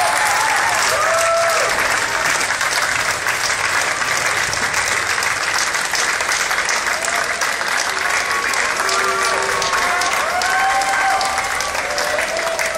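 Large outdoor crowd applauding steadily, a dense patter of many hands clapping, with voices shouting and calling out over it at several points.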